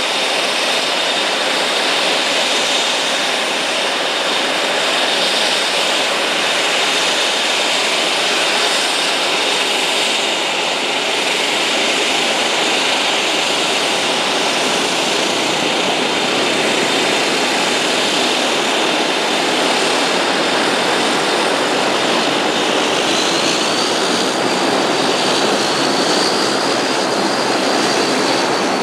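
Dash 8 Q400's two Pratt & Whitney Canada PW150A turboprops running on the ground after startup, six-bladed propellers turning: a steady loud rush with a high whine over it. About two-thirds of the way through, the whine climbs a little in pitch, in two small steps.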